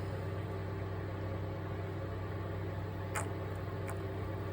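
Steady low machine hum, with two light clicks a little past the middle.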